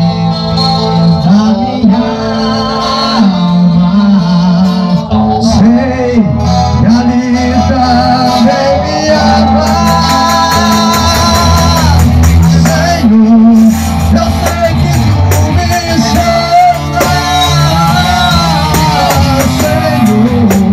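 Small live band playing a worship song in rehearsal, with guitar over a steady bass line.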